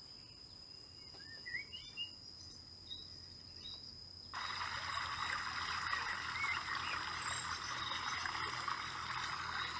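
Outdoor nature ambience: a few short rising bird chirps over a faint steady high tone. A little over four seconds in, a louder, dense chorus-like hiss comes in abruptly and holds.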